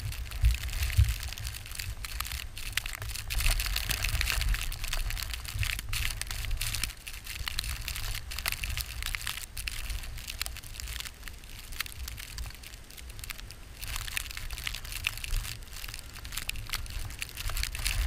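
Blizzard wind buffeting the microphone: a low, gusting rumble with a dense, irregular crackle over it.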